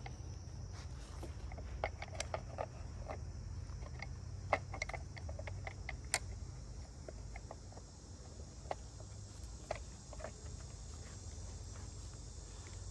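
Scattered light clicks and knocks of a STIHL 462 chainsaw's side cover being fitted back over the bar studs and its nuts started, with insects chirping steadily in the background.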